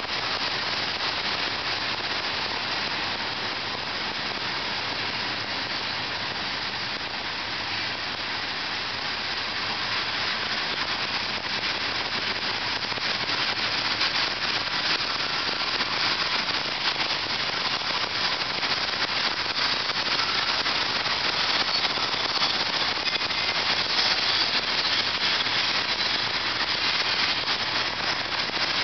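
Freight train's hopper cars rolling past, steel wheels on rail making a steady, dense rattling clatter that grows a little louder in the second half.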